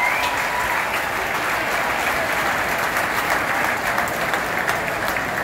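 Large ballpark crowd applauding, a dense steady clapping.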